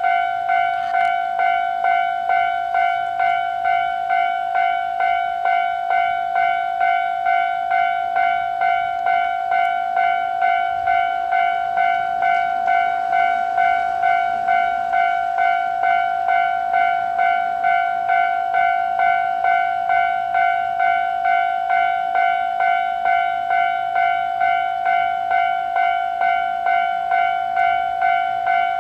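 Japanese railway level-crossing alarm ringing continuously, a steady electronic ding repeating about one and a half times a second, sounding as a train approaches.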